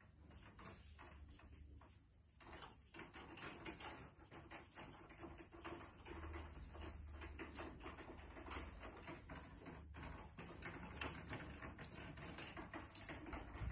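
Faint handling noise from a phone camera carried through a room: irregular light clicks and rustles over a low steady hum, with one louder knock at the very end.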